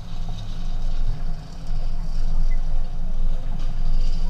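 Low, uneven rumble of a vehicle driving slowly over a grass field, heard from a camera mounted on its hood.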